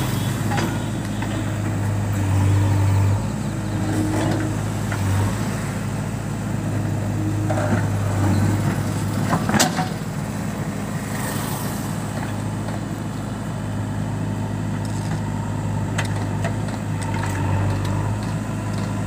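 JCB backhoe loader's diesel engine running steadily as the backhoe arm digs, the engine note swelling at times under the work. A single sharp knock comes about halfway through.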